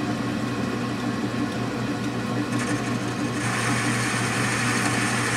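Metal lathe running steadily with a low hum as it spins a rifle barrel. About three seconds in, the tool bit meets the barrel's outside for a light skim cut, adding a steady hiss with a high whine over the hum.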